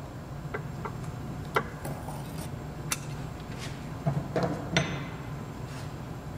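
Metal clicks and clinks of pliers working at a steering rack boot's clamp and wire fastener: about seven short, separate ticks, the sharpest about a second and a half in and near three seconds.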